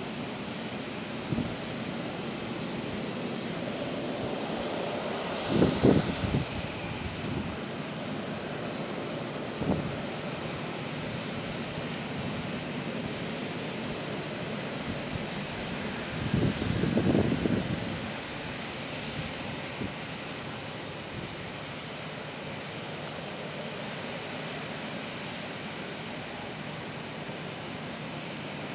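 Steady jet-engine noise from the airport apron. It swells louder twice, about six seconds in and again for a couple of seconds around sixteen to eighteen seconds, with a few small knocks in between.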